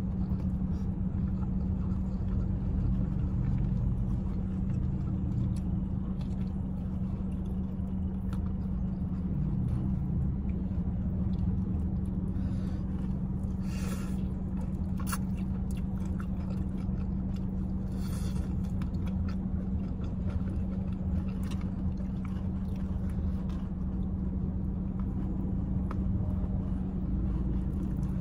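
Steady low hum of a car idling, heard inside the cabin, with chewing and a few short crunches as crispy fried chicken is eaten by hand.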